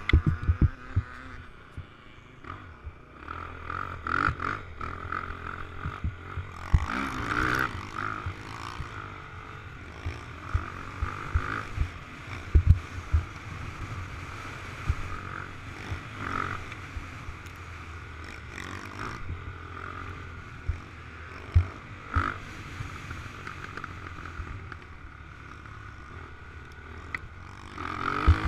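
Off-road engine being revved hard and backed off in repeated surges, heard with rushing wind on a helmet-mounted camera, and scattered low thumps as the machine hits bumps.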